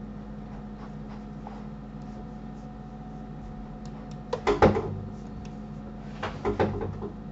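Knocks and bumps from a dog playing in the room, in two short bursts about four and a half and six and a half seconds in, over a steady electrical hum. A few faint clicks come in between.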